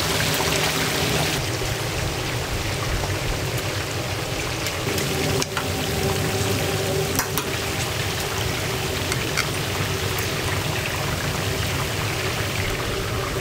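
Pork belly sizzling on a hot grill: a steady hiss with scattered sharp pops of spattering fat. The hiss turns duller about a second and a half in.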